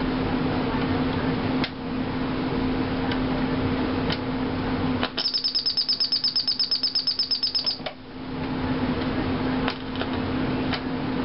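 Panasonic RC-6354 flip clock radio's alarm going off midway: a rapid high-pitched beeping, about nine pulses a second, for under three seconds before it cuts off. Around it the radio gives a steady hiss with a low hum, broken by a few sharp clicks.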